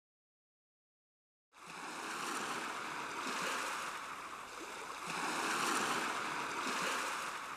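An even rushing noise, like surf or running water, that starts after about a second and a half of silence and swells and ebbs twice, part of the end-card soundtrack.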